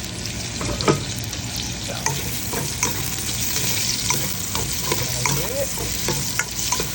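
Ginger, garlic and onion sizzling steadily in hot oil in a pot, with a utensil stirring them and clicking against the pot many times.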